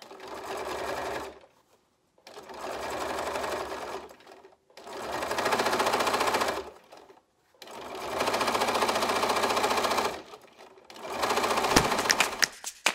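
Bernina aurora 440 QE sewing machine stitching through coiled fabric rope in five short runs, stopping briefly between each, with a few separate needle strokes near the end.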